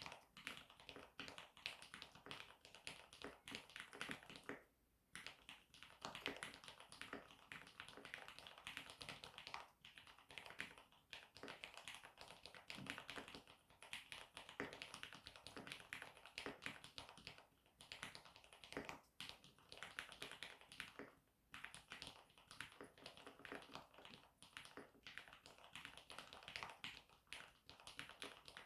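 Continuous typing on a Mode Eighty mechanical keyboard with Cherry MX Black linear switches and its bundle keycaps: a rapid, uneven patter of keystrokes, with brief pauses about five seconds in and again just past twenty seconds.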